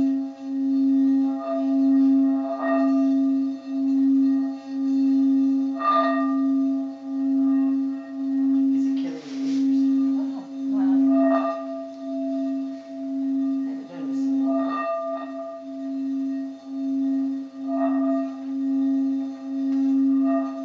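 Frosted quartz crystal singing bowl sung by circling a wand around its rim: one steady low hum with fainter higher overtones, swelling and fading about once a second.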